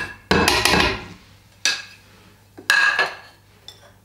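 Kitchen clatter: a spatula knocking and scraping a ceramic bowl held over a stainless-steel blender jar as cocoa powder is tipped in, with a handful of sharp knocks and clinks spread through.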